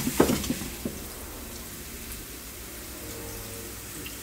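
Chopped onion frying in a nonstick pan, a steady soft sizzle. A few knocks of stirring in the first second.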